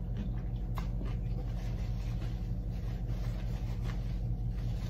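A steady low hum, with a couple of faint clicks from a person chewing crispy fried chicken with her mouth closed.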